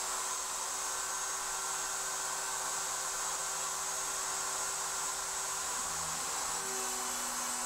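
Steady whirring hum from the SHARK RS1000 Pro CNC router table. About six seconds in, a faint tone in it shifts higher as the motorised lift starts raising the router bit.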